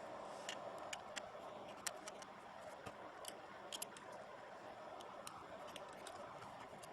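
Faint, irregular small clicks and ticks of a tiny T3 Torx screwdriver working screws out of a BlackBerry Torch 9800's frame, with the tool tapping on the phone's small parts.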